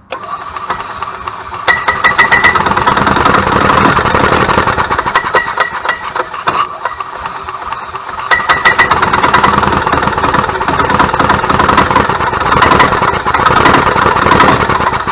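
1998 Club Car DS golf cart's single-cylinder gas engine running unevenly, popping and skipping as it surges up and falls back again and again, trying to pick up and run but failing: the engine is misfiring.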